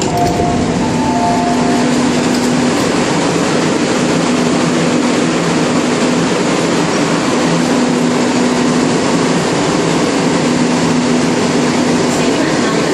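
MTR Kwun Tong line C-Train on the move, heard from inside the car: a steady rumble of wheels and running gear, with a faint low hum that comes and goes.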